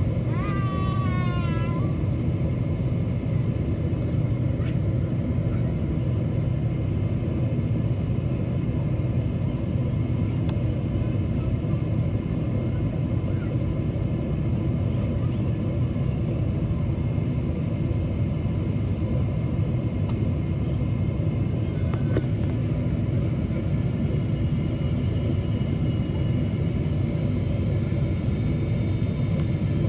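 Steady low rumble of an airliner cabin during descent, engine and airflow noise. A short, rising high-pitched cry sounds in the first two seconds.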